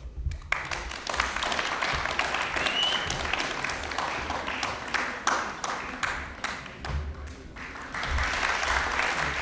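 Audience applauding, many people clapping. It starts about half a second in, eases slightly near the end, then swells again.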